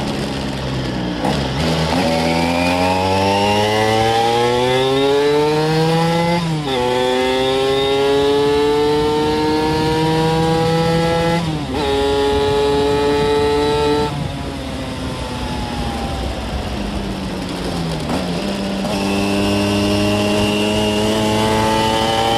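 Vespa scooter's two-stroke engine, tuned with a Quattrini M1L 60 cylinder kit, revving up hard under acceleration, with two sudden drops in pitch at gear changes about six and twelve seconds in. A little past the middle the throttle closes and the revs fall away for about four seconds, then the engine pulls up again near the end.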